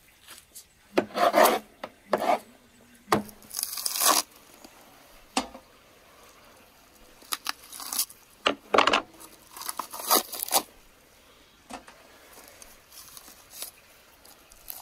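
Butchering raw lamb by hand: a knife slicing through meat and fat, with wet tearing and scraping as fat is pulled away from the carcass. Irregular, with a few sharp knocks of the blade.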